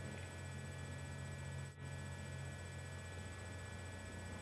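Steady low electrical hum with a faint hiss: the recording's background noise, dipping briefly about two seconds in.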